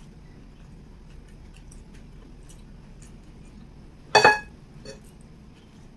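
Close-miked eating sounds: faint mouth clicks while chewing by hand, with one short, loud smack about four seconds in and a softer one just before five seconds.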